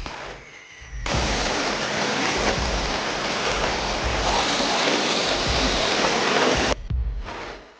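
A steady spraying hiss that starts abruptly about a second in and cuts off sharply near seven seconds.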